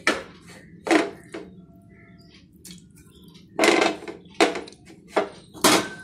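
A handful of short knocks and scrapes of a plate against a metal saucepan as grated ginger is tipped and scraped into the water in it.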